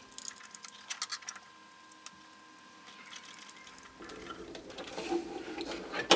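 Small clicks and rubbing of a wire being fitted and screwed into a screw terminal block, a quick flurry of ticks in the first second or so, then faint handling noise from about four seconds in.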